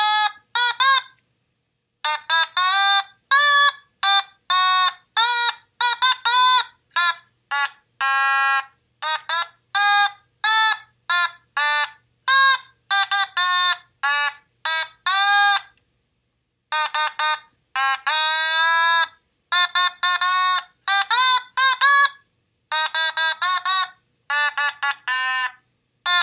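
Otamatone playing a melody: a run of short, separate notes, each scooping into its pitch, with a few longer held notes and short pauses between phrases.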